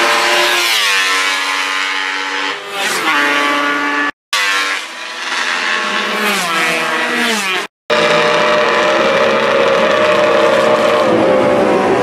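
Classic racing motorcycles at speed, the engine note falling in pitch as each bike goes by, in two passes that break off abruptly. About eight seconds in, a motorcycle engine runs at a steadier pitch as a bike rides down the pit lane.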